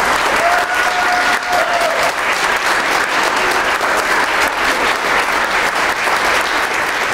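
Audience applauding steadily, dense clapping from many hands in a reverberant church. Near the start, one voice holds a cheering call for about a second and a half above the clapping.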